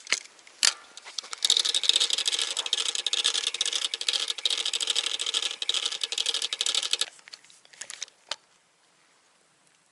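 Fishing reel being cranked: a fast, even run of clicking for about six seconds, stopping suddenly, with a sharp click just before it starts and a couple of single clicks after.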